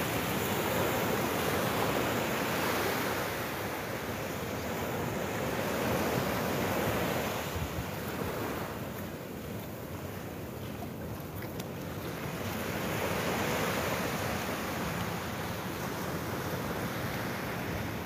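Small waves washing up on a sandy beach, the surf swelling and fading every few seconds, with wind rumbling on the microphone.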